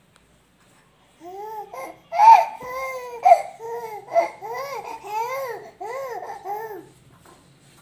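A high-pitched voice making a string of about ten short sing-song coos, each rising and falling in pitch, with a couple of louder, sharper cries among the first few.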